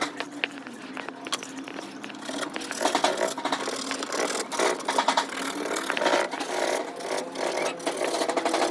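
A small electric motor tool running steadily, with repeated scraping and clicking against the work; its pitch dips and recovers about a second in.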